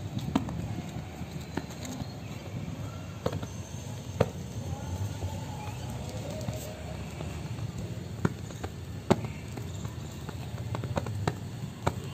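Strong wind rumbling on the microphone, with a handful of sharp clicks or pops scattered through it.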